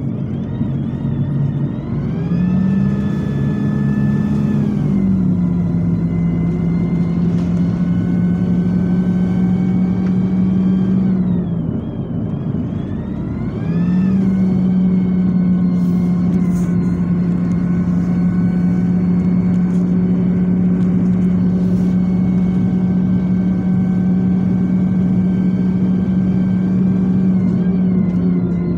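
Preserved bus's diesel engine pulling under load, heard from inside the saloon: a steady engine note that rises about two seconds in and settles a little lower soon after. It dips away briefly around twelve seconds, then picks up again and holds steady.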